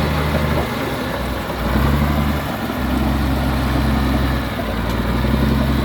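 Komatsu D83E bulldozer's six-cylinder turbo diesel engine running, its note dipping and coming back up several times as the machine works.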